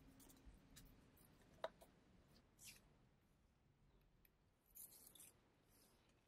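Near silence with faint rustles of printed paper stickers being handled, and one sharp click about a second and a half in.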